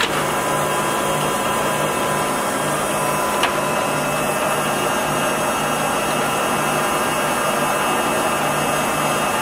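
A 27" x 80" Timemaster gap bed engine lathe running under power, with a steady mechanical drive noise and a low hum that pulses about twice a second. A single sharp click comes about three and a half seconds in.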